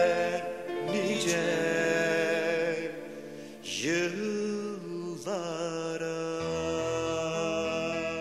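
Slow music with long held notes, some bending in pitch. A low bass line comes in about six seconds in.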